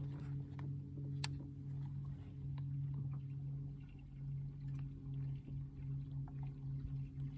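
Steady low hum of a boat's motor, with a single sharp click about a second in and faint small water sounds.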